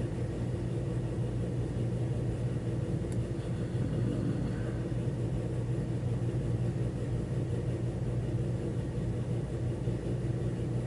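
Steady low hum or rumble of room background noise, unchanging throughout, with no speech.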